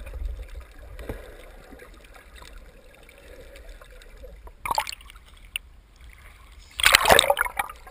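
Muffled underwater rumble and gurgle from a camera in a waterproof housing just below the surface, with a short splash a little before the five-second mark and a loud burst of splashing and sloshing near the end as the camera bobs through the water surface.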